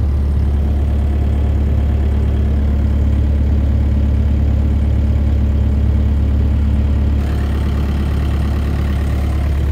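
Diesel engine of a Bobcat 331G mini excavator, running steadily with an even, deep drone; its sound shifts slightly about seven seconds in.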